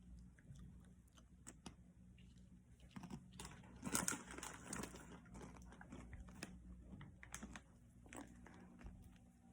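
Faint rustling and scattered light clicks, with a louder crinkling rustle about four seconds in.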